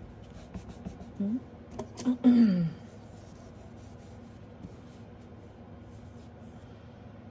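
Light handling of small paper pieces being pressed onto a metal nail-stamping plate, with a few small clicks. A short hummed vocal sound comes about a second in, and a louder non-word vocal sound falling in pitch comes at about two seconds.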